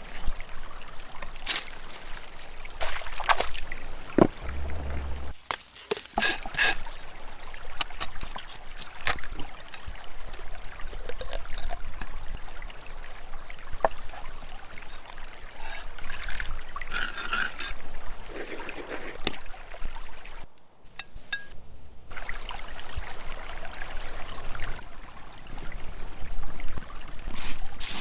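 Kitchen food-preparation sounds: water trickling and pouring, with scattered knocks and clicks. The sound breaks off briefly twice.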